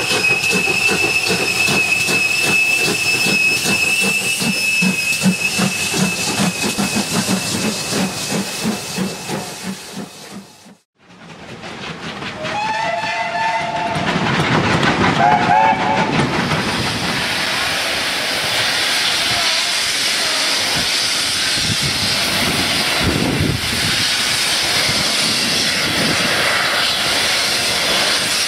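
GWR 4-4-0 No. 3717 'City of Truro' working a train, with rhythmic exhaust beats under a long, steady, high whistle, fading out about ten seconds in. After a short silence a whistle sounds in wavering blasts. Then a steam locomotive, LMS Black Five No. 45379, passes close by, and a dense rush of exhaust and steam hiss takes over.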